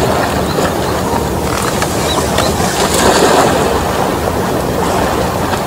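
Wind on the microphone over small waves washing against the shore rocks, a steady noise with many small ticks through it.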